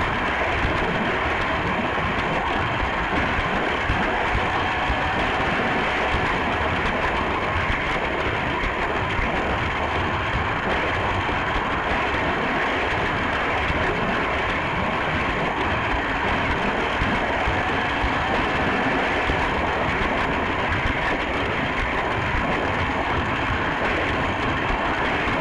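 Toy electric train running steadily, its small motor whirring and plastic wagons rattling over the track, heard close up from a camera riding on the train.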